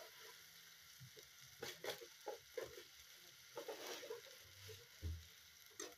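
Onion, tomato and spice masala frying gently in a wok, heard faintly as scattered small pops and spatters, with a few soft knocks.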